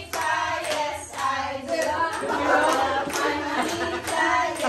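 A group of adults singing together while clapping their hands along.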